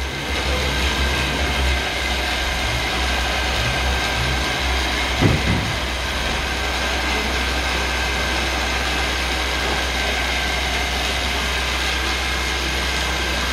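Huron M66 milling machine running, a steady motor and gearbox hum with a strong low drone. A brief clunk about five seconds in.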